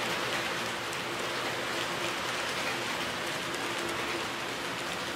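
HO scale model freight train rolling past on its track: a steady rattling hiss from the many small wheels on the rails, with a faint steady hum underneath and light ticks.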